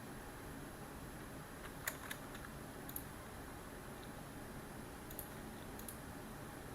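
A few scattered, irregular keystrokes on a computer keyboard, over a steady background hiss.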